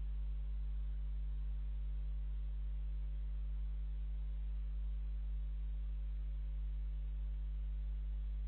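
Steady low electrical hum with no animal sounds.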